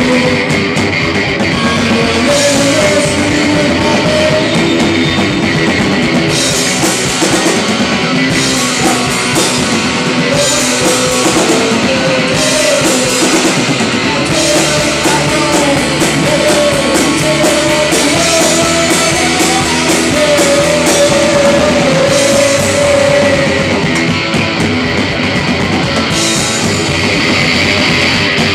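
Live rock band playing an instrumental passage: drum kit and electric guitar, with a harmonica played cupped against the vocal microphone carrying a wavering lead line.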